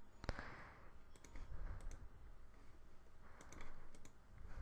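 Faint clicking of a computer mouse and keyboard: a handful of scattered clicks, several in quick pairs.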